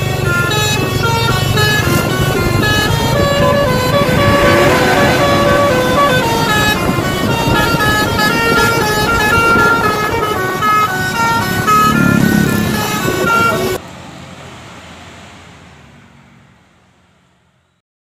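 Basuri multi-tone 'telolet' bus horn playing a rapid tune of short, stepped notes over a steady low hum. It stops abruptly about fourteen seconds in, leaving a fainter noise that fades out.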